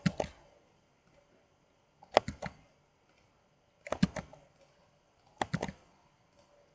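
Computer mouse and keyboard clicks in short clusters of a few sharp clicks each, four times about one and a half to two seconds apart: selecting frame after frame and pressing the Ctrl+F shortcut to sharpen each one.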